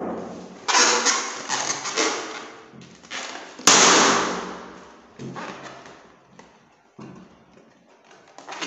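A small pink latex balloon bursting in a squeezing hand with one sharp pop a little under four seconds in, the loudest sound, its ring fading over the next second or so. Before and after, several softer thuds and rustles from balloons being handled, each dying away.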